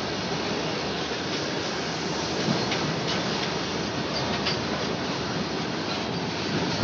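Empty BOBSN hopper wagons of a freight train rolling past close by: a steady rumble of steel wheels on the rails, with a few scattered clicks and knocks.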